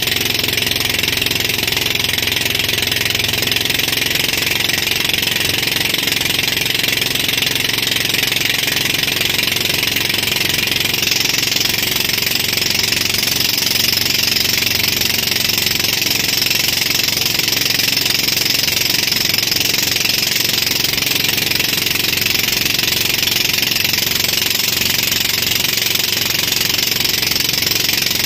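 Motorboat engine running steadily at speed while towing, with a constant hiss over it.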